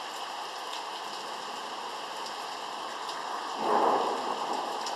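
Steady rain falling, with a sudden clap of thunder about three and a half seconds in that fades over the next second.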